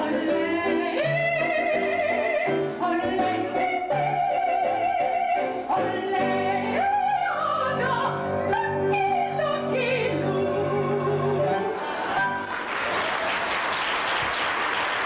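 A voice singing in an operatic style with a wavering vibrato over instrumental accompaniment. The song ends about twelve and a half seconds in, and audience applause follows.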